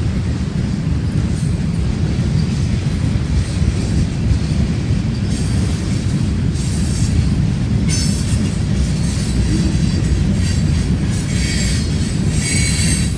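Freight train of centerbeam flatcars loaded with lumber rolling past with a steady low rumble. From about eight seconds in, high-pitched wheel squeal comes and goes, strongest near the end.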